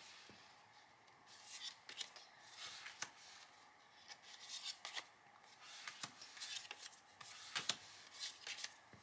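Faint rustling and light ticks of paper journaling cards being slid and flipped through by hand, in short irregular swishes.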